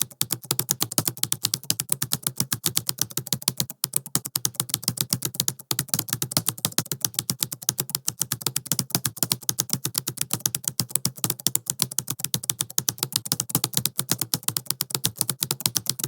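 Fast typing on a laptop keyboard: a rapid, continuous patter of key clicks, with a brief break about four seconds in and again near six seconds.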